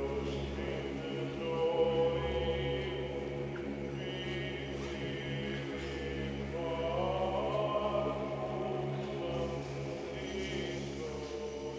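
Choral chant: voices sing a slow melody over a steady held low drone, with the melody rising and swelling partway through.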